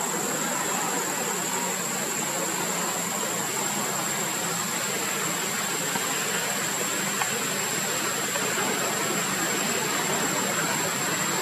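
Steady outdoor ambient noise: an even hiss with a constant high-pitched whine.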